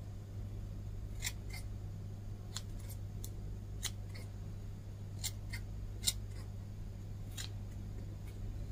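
Scissors snipping through hair, about ten short, sharp cuts at irregular intervals over a steady low hum.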